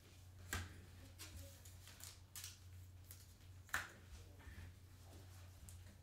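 Faint handling sounds of gloved hands picking up a stack of trading cards: a few soft clicks and swishes, the sharpest nearly four seconds in, over a low steady hum.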